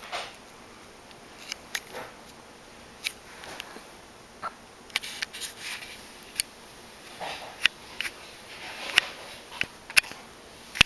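Pit bull terrier sniffing in short puffs, with scattered small clicks and taps throughout.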